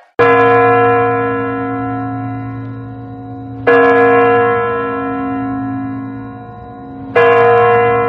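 Large clock-tower bell striking midnight: three strokes about three and a half seconds apart, each ringing on and slowly fading until the next.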